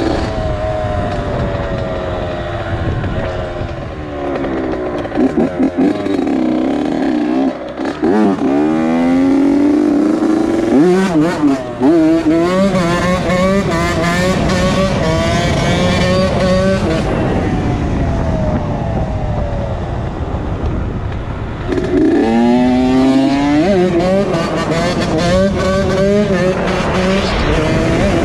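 2001 Honda CR80's two-stroke single-cylinder engine being ridden hard: it revs up in several rising sweeps, the pitch dropping back with each gear change, with steadier running between the pulls.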